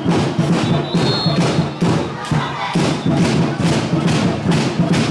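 A drum beaten in a steady rhythm, about two beats a second, like fans drumming in the stands.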